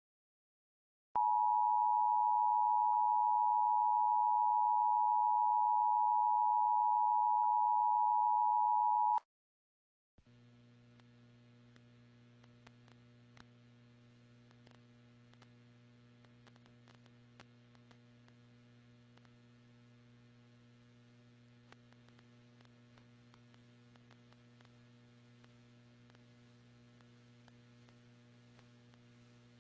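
Emergency Alert System attention signal: a steady two-tone beep (853 and 960 Hz together) that starts about a second in and holds for about eight seconds, then cuts off. After a second of silence there is only a faint low hum with scattered small clicks.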